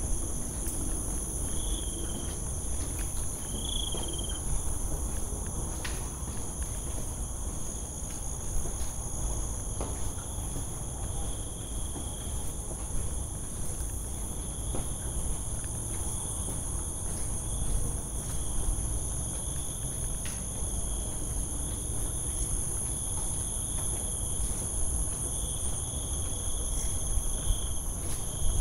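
Insects chirping in a steady, high-pitched chorus, with a lower chirp that comes and goes, over a low rumble and a few faint clicks.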